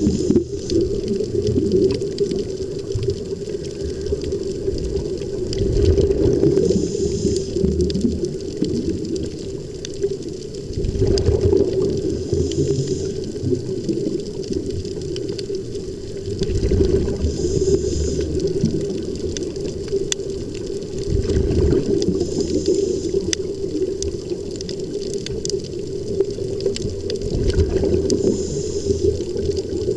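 Steady underwater bubbling and rushing of air escaping from helmet-diving (sea-walk) helmets fed by a surface air supply, with a brief high hiss about every five seconds.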